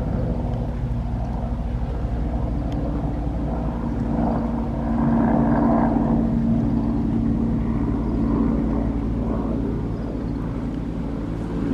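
Bell 412EP helicopter flying past, its steady rotor and engine drone growing louder to a peak about halfway through and then easing off.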